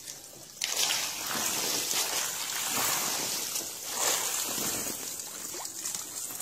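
Wet, steady hiss of hundreds of small fish wriggling and splashing together in shallow water in a plastic container, starting about half a second in.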